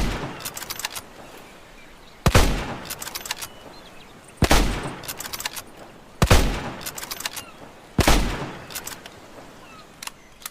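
Springfield rifle firing five shots about two seconds apart, each shot ringing out and followed by a quick run of clicks.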